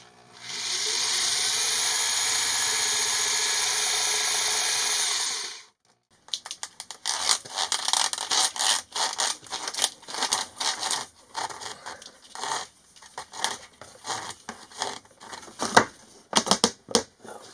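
Cordless drill running steadily for about five seconds as it bores through a wooden cabinet panel, then stopping. After a short pause come irregular scraping, rubbing and knocking as a wire is worked through the freshly drilled hole.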